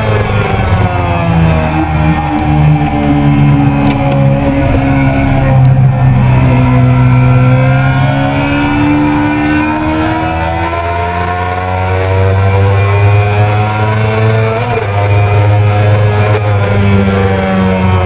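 Yamaha R6's 600 cc inline-four engine running hard at high revs on track, its pitch climbing under acceleration and dropping at gear changes, about six seconds in and again near fifteen seconds.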